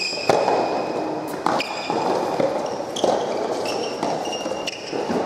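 Soft tennis rally in a large indoor hall: the soft rubber ball is struck by rackets four times, roughly every second and a half, the serve first and loudest, with high squeaks running between the hits.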